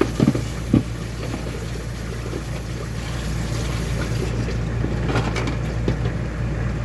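Water running into a kitchen sink, with a few clinks of silverware in a washing tub just after the start and again around five seconds in.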